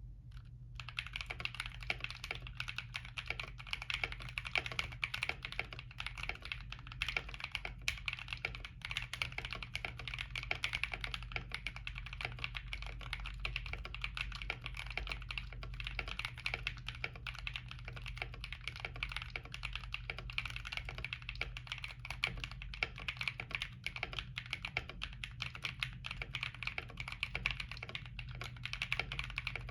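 Continuous fast typing on a Womier K66 acrylic mechanical keyboard with stock CIY Naraka switches, double-shot ASA keycaps and a tape mod: a dense run of keystroke clacks, over a steady low hum.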